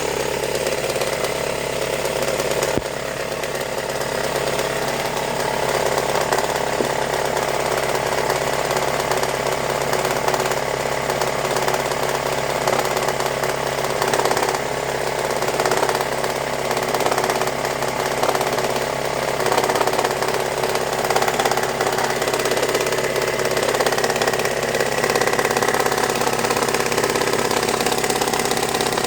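Toyota 3S-FE four-cylinder engine idling steadily with a knock, which the owner suspects comes from a timing belt pulley.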